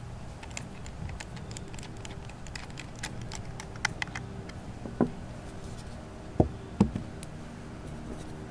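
Faint clicks and scrapes of screwdrivers working the small screws of a plastic pistol grip, with a few louder knocks in the second half as parts and tools are handled and set down. A steady low hum runs underneath.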